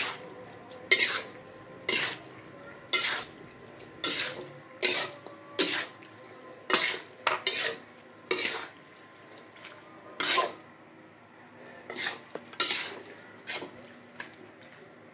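Metal spatula scraping and tossing squid in chilli paste around a metal wok: a dozen or so short scrapes, roughly one a second, with a couple of brief pauses.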